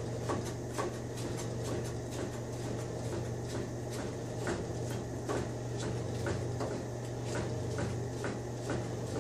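Chef's knife slicing thin carrot slices into julienne on a plastic cutting board: an even run of knife taps, about two a second, over a low steady hum.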